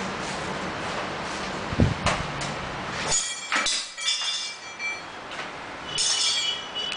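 Metal tools or parts being handled: two knocks, then clusters of short, ringing metallic clinks, over a steady workshop background that stops about three seconds in.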